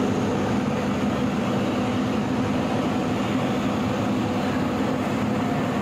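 Hydroelectric turbine-generator unit running in its powerhouse: a steady mechanical roar with a constant low hum.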